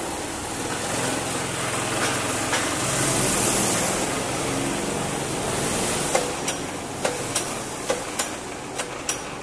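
Petrol rental go-kart engines running in an enclosed karting hall: a steady mechanical drone. In the last few seconds a series of sharp clicks comes about two to three a second.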